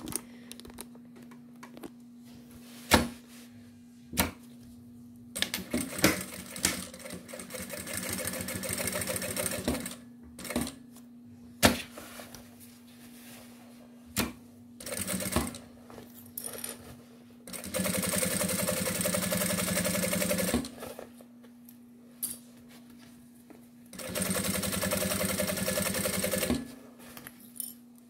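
Industrial sewing machine stitching a bag's side seam through synthetic leather and lining, in several stop-start runs, the two longest and loudest in the second half. Sharp clicks come between the runs, and a faint steady hum sits under the pauses.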